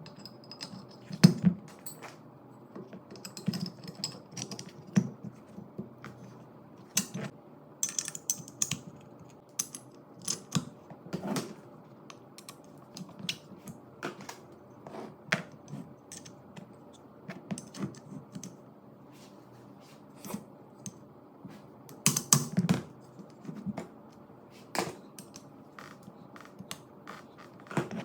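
Irregular light clicks and taps of small hard parts being handled, a few every second, with louder knocks about a second in and again around two-thirds of the way through, over a faint steady hum.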